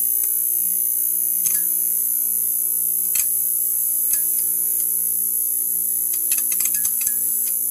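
Neon sign buzzing: a steady electrical hum with a high-pitched whine over it, broken by scattered sharp crackling ticks, with a quick run of them near the end.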